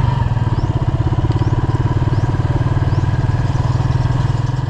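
Small motorcycle engine running at a steady low speed, its rapid firing pulse heard close up. It drops away at the very end.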